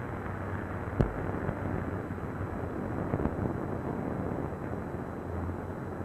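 Steady rumbling noise from a cable-laying barge and its machinery as strand pays out from the deck reel, with one sharp click about a second in.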